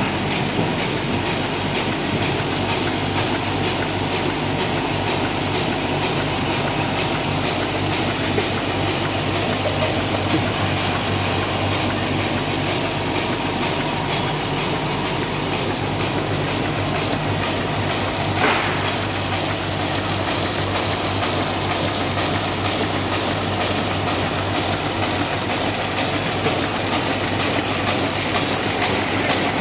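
Envelope-making machines running steadily: a dense, continuous mechanical clatter over a low hum, with one brief sharp sound about eighteen seconds in.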